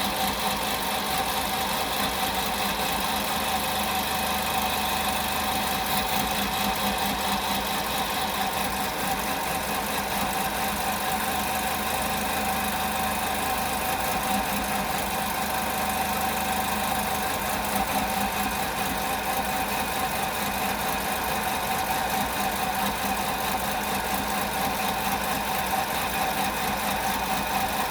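VW Polo Vivo petrol engine idling steadily with no revving, showing the intermittent rough idle that new spark plugs and two new ignition coils have not cured.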